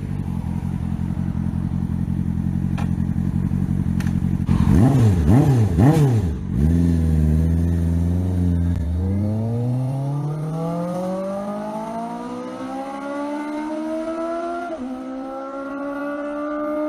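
Benda LFC 700 motorcycle engine idling through its valved exhaust, then revved three times in quick succession. After a brief steady hold, the bike pulls away and accelerates, the engine note climbing steadily, with a gear change near the end.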